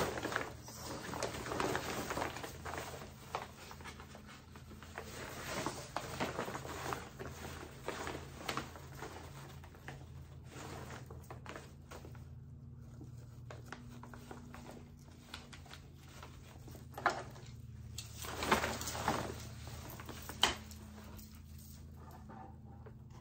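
Synthetic fabric of a camping cot's bed rustling and swishing as it is handled and a pole is slid into its sleeve, with a sharp click near the end.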